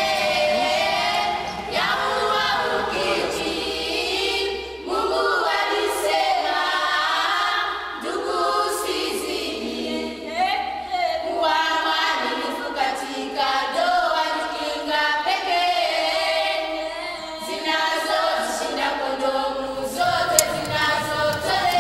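A choir singing a cappella, several voices together in a continuous song.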